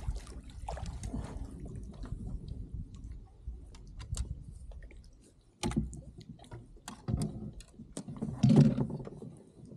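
Scattered clicks and knocks of fishing tackle, a landing net and the plastic kayak hull being handled while a bass is netted beside the kayak. There is a louder, longer burst of knocking and rattling near the end.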